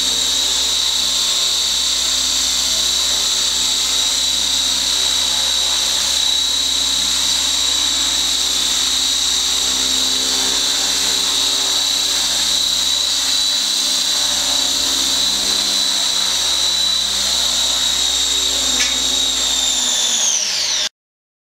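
Skyartec Wasp X3V flybarless RC helicopter hovering, its small brushless electric motor and rotors giving a steady high-pitched whine. The whine drops in pitch and cuts off suddenly near the end.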